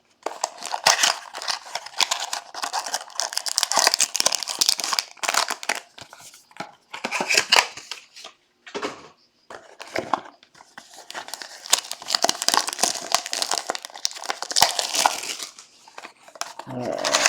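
Crinkling and rustling of wrapping as trading card boxes and packs are handled and opened, with bits of tearing and many small sharp clicks, broken by a few short pauses.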